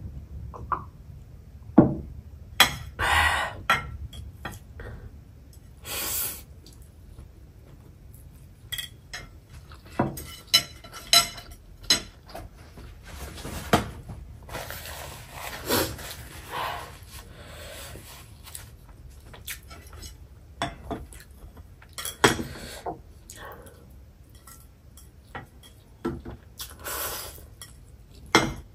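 Close-up eating sounds: chewing and swallowing, with scattered clicks and clinks of chopsticks, a plate and a drinking glass.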